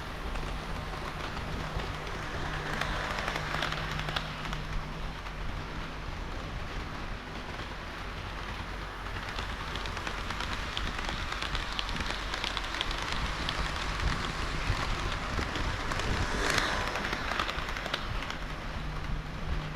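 HO-scale model train of KiHa 40 and KiHa 58 series railcars running on the layout track: a constant rattle of small clicks from the wheels on the rails with a steady low motor hum, swelling louder twice.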